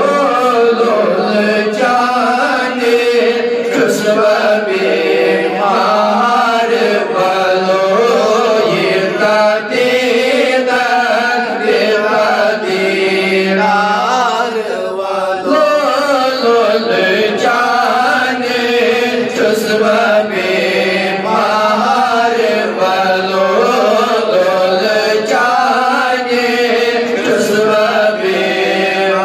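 A man's solo voice singing a Kashmiri naat, an Islamic devotional poem, into a microphone in long, wavering melodic phrases, with a steady low drone underneath.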